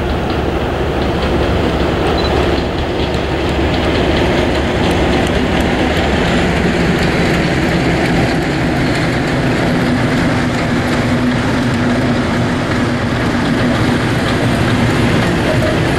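Class 37 diesel-electric locomotive passing under power, its English Electric V12 engine running steadily and loudly as it hauls a train of coaches, with wheels clicking over the rail joints.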